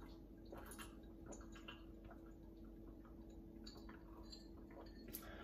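Faint eating sounds: quiet chewing with small scattered mouth clicks, over a steady low hum.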